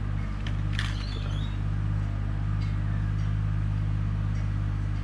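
Steady low mechanical hum, with a brief rustle about a second in and a few faint ticks.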